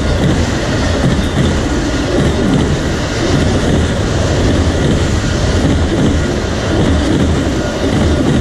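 Freight train of autorack cars rolling past at a level crossing: a steady rumble and clatter of steel wheels on the rails.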